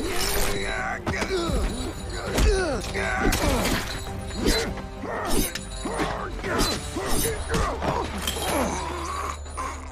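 Fight sound effects, a chain whip lashing and blows landing with thuds and clatters, with grunts and pained cries over background music.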